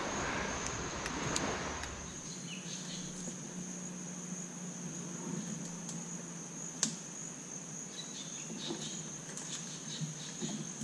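Insects droning at one steady high pitch in a mangrove forest, with a few scattered light clicks and knocks.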